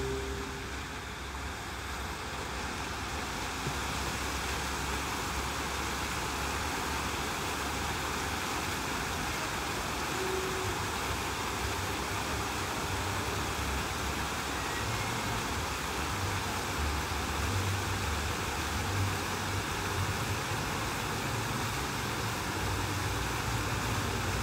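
Rows of water jets of a large show fountain spraying and falling back into the pool: a steady rushing hiss that swells over the first few seconds, with an uneven low rumble underneath.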